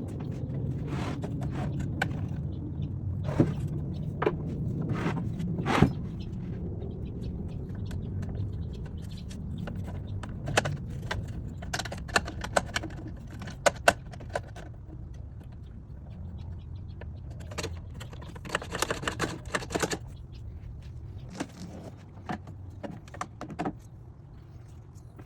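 Hands handling and fitting hard parts: scattered clicks, knocks and light rattles, a quick cluster of them about three-quarters of the way through, over a low steady hum.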